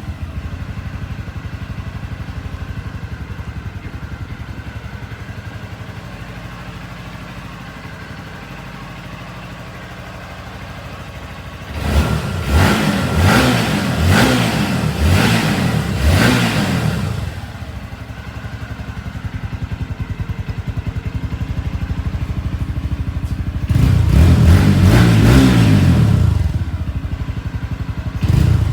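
Suzuki Haojue DK 160 motorcycle's single-cylinder engine and exhaust idling steadily, then revved in a series of quick throttle blips about twelve seconds in before settling back to idle. Near the end the engine is held at higher revs for a few seconds, then drops back to idle.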